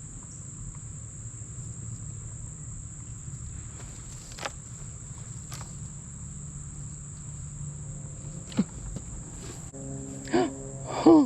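Crickets trilling steadily at a high pitch, with a few faint clicks now and then.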